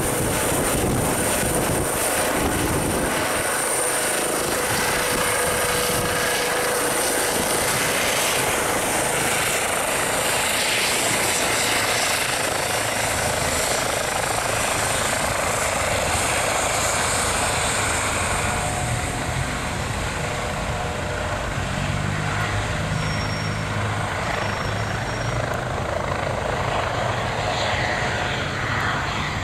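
Eurocopter EC135T2+ helicopter in a low hover and hover-taxi, its twin turboshaft engines whining and its main rotor and Fenestron shrouded tail rotor making a loud, steady rush. The sound eases slightly in the last third as the helicopter moves away.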